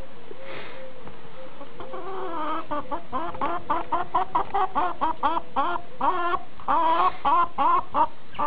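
A hen clucking in a rapid run of short calls, several a second, starting about two seconds in and getting louder toward the end.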